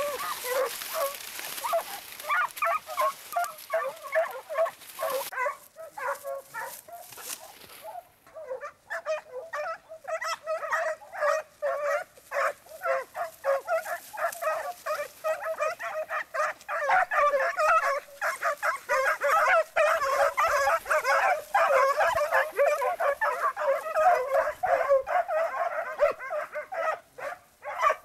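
A pack of hunting hounds giving tongue on a scent trail: many overlapping yelps and barks. They are sparser at first and build to a dense, continuous chorus from about ten seconds in. Dry maize stalks rustle against the camera in the first few seconds.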